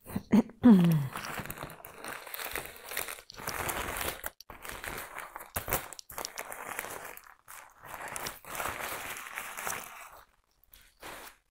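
Paper wrapping rustling and crinkling in irregular bursts as it is pulled off a potted plant, stopping shortly before the end. A short falling vocal hum about half a second in is the loudest moment.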